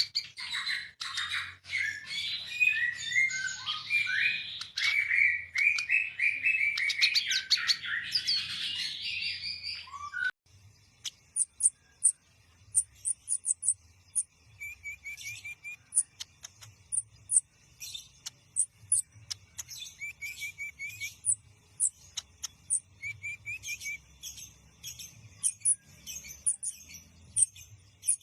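Sunbirds singing: a dense, rapid song of many jumbled notes for about ten seconds that cuts off abruptly, then a different song of very high, thin short notes alternating with brief trills lower in pitch, repeated every couple of seconds.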